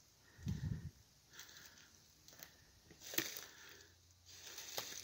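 Slow, careful footsteps on dry leaf litter: a few separate crunches spaced about a second apart, with a short low thump about half a second in.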